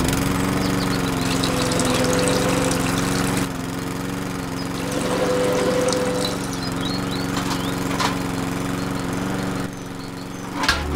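Small electric motor of a miniature carrot-juicing roller machine running steadily with a hum, turning its two metal rollers as carrots are crushed between them, with a few light crackles.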